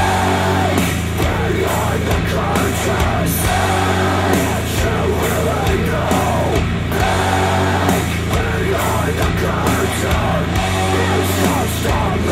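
Polk Audio Reserve R100 bookshelf speakers playing a song with a steady bass line and a singing voice, driven by an Arcam SA10 integrated amplifier.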